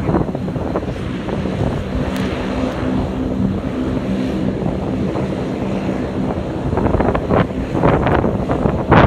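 Aircraft engines droning steadily with a low hum, while gusty wind buffets the microphone, the gusts growing stronger near the end.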